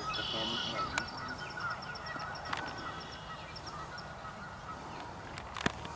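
Geese honking in the distance, with small birds trilling high and fast and a low wind rumble on the microphone.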